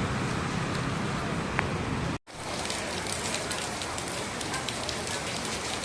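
Heavy rain falling, a steady hiss with dense pattering of drops. The sound drops out completely for a moment a little over two seconds in, then carries on.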